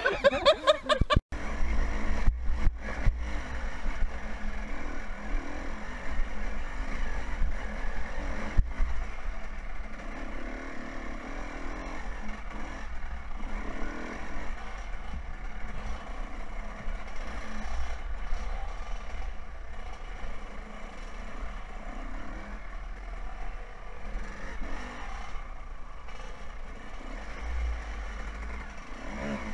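Suzuki RM125 two-stroke dirt bike heard from a helmet-mounted camera while riding a trail, its engine note rising and falling with the throttle. A heavy low rumble of wind buffets the microphone, and a few sharp knocks come in the first few seconds and once about eight seconds in.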